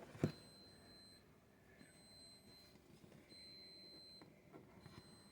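Faint high-pitched electronic beeping: one steady tone, each beep about a second long, repeating roughly every second and a half. A single light knock comes just after the start.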